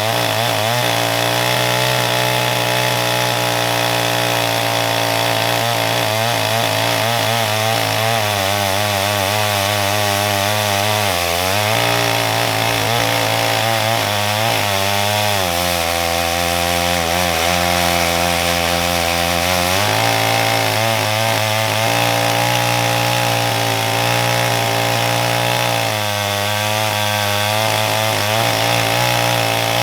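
Farmertec G888 chainsaw, a Stihl MS880 clone with a two-stroke engine, running wide open while ripping a slab on a chainsaw mill. It runs steadily and loud; the engine pitch dips briefly a couple of times and sags lower for about four seconds in the middle.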